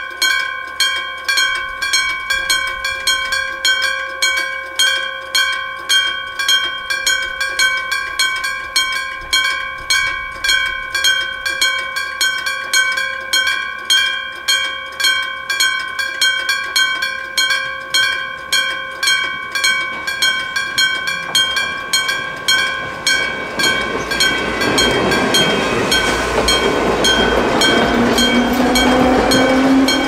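Electromechanical level-crossing bell ringing in steady strokes, about three every two seconds. From about two-thirds of the way in, an electric train approaches and passes with a rising rumble, its motor whine climbing in pitch near the end, while the bell keeps ringing.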